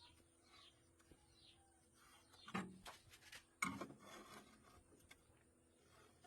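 Two short scraping knocks about a second apart in an otherwise faint background, with a few faint high chirps before them.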